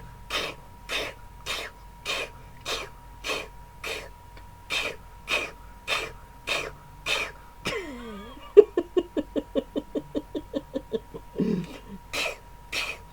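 A man fake-sneezing nonstop: short forced sneezes about two a second. Partway through comes a falling drawn-out wind-up, then a rapid string of short voiced bursts about seven a second, and the quick sneezes start again near the end.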